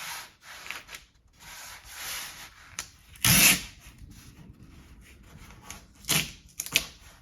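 Masking tape being pulled off the roll and rubbed down by hand onto a vinyl decal on a window, a run of rubbing and scraping noises. There is one loud short rip a little over three seconds in and a few sharp ticks near the end.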